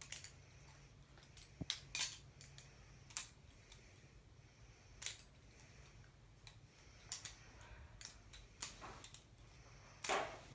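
Butterfly knife being flipped: irregular, sharp metallic clicks and clacks as the handles swing around and knock against each other and the blade, with a louder clack near the end.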